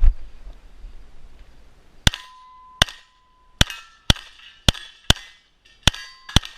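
A firearm fired eight times at an uneven, quick pace, the shots about half a second to a second apart, starting about two seconds in. A faint ringing tone lingers after several of the shots.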